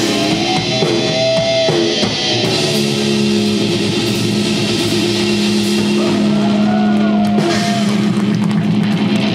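Live metal band playing at full volume: distorted electric guitar, bass guitar and drum kit, with a long held low note from about two and a half seconds in.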